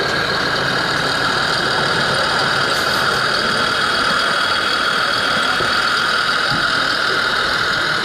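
Radio-controlled model Saurer army dump truck running, a steady engine-like drone with a constant high whine.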